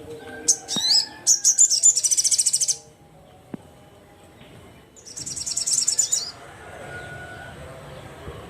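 Sogon songbird singing: two loud runs of rapid, high, repeated trilling notes, the first lasting about two seconds and the second about a second, with a short pause between.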